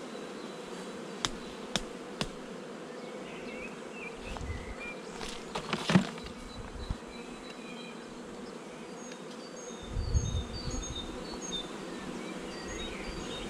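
Honeybees buzzing steadily over an open hive, with a few sharp knocks near the start and a louder knock about six seconds in.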